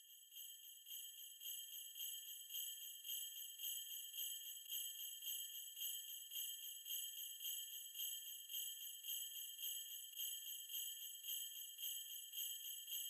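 Sleigh bells shaken in a steady rhythm, about three jingles a second, fading in over the first couple of seconds and then holding steady.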